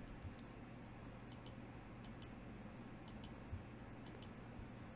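Faint computer mouse clicks, a dozen or so light ticks, several in quick pairs, over a low steady hum.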